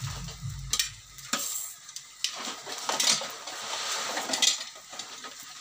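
Metal spatula stirring noodles in a steel wok, with a handful of sharp clinks against the pan over a light sizzle.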